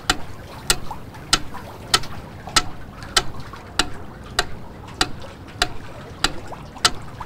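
Pyramid-shaped mechanical metronome ticking steadily, one sharp tick about every 0.6 seconds (roughly 100 beats a minute).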